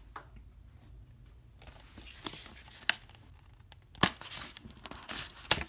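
Packaging being torn and peeled off a Blu-ray steelbook case: crinkling that starts after about a second and a half, with sharp snaps about three and four seconds in and again near the end.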